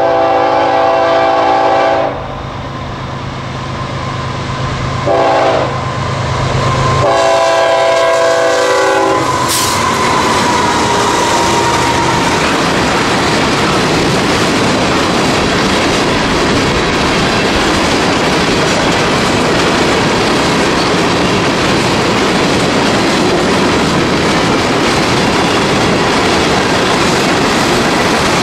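A BNSF freight locomotive's multi-note air horn sounds a grade-crossing signal: a long blast, a short one about five seconds in, then a long one that ends as the locomotives reach the crossing. A train of covered hopper cars then rolls past, a steady loud rolling noise of steel wheels on the rails.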